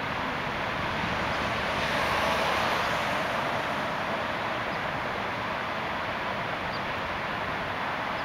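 Steady city street traffic noise, swelling briefly as a vehicle passes about two seconds in.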